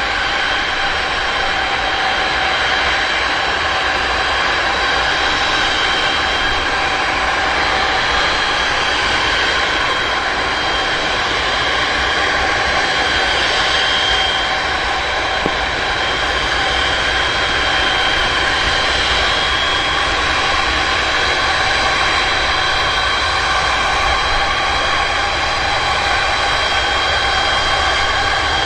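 Jet engines of the Antonov An-225 Mriya, six D-18T turbofans, running steadily: a constant rush with several high, steady whining tones on top.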